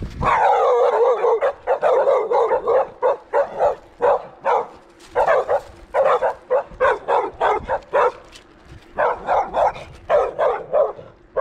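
Dogs barking hard and fast at a passing bicycle, in quick runs of barks broken by short pauses: territorial barking as they chase it along the road.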